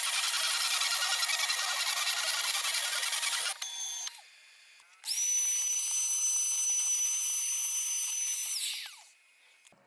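CNC router spindle cutting plywood, then stopping. About five seconds in it spins up again to a steady high whine with cutting noise underneath, and it winds down with a falling whine near the end.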